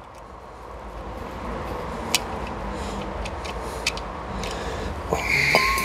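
Traffic noise from a passing road vehicle, a broad rush with low rumble that swells over several seconds. A few light metallic clicks come from a screwdriver turning the oil check screw into the moped engine's aluminium clutch cover.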